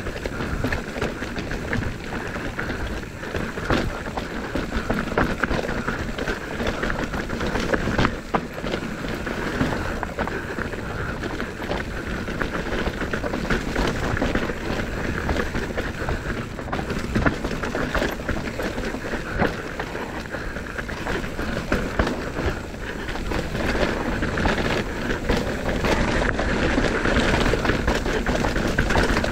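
Commencal Meta AM mountain bike descending a dirt trail at speed: tyres on dirt and loose ground, rattling bike parts and wind rush, with frequent knocks from bumps.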